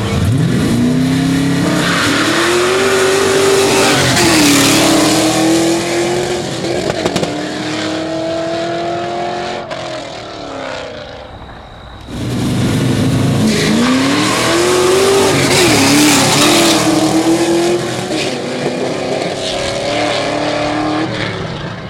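Drag-racing cars launching hard and accelerating away, engines revving up with a drop in pitch at each gear shift. The run ends and a second launch starts abruptly about halfway through.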